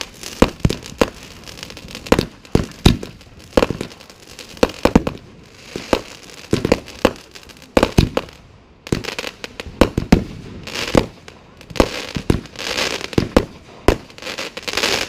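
Consumer aerial fireworks going off in quick succession: a string of sharp bangs and pops from shells launching and bursting, with a stretch of dense crackling near the end.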